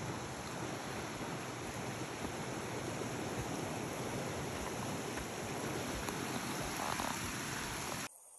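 Mountain creek water rushing steadily, cutting off suddenly near the end.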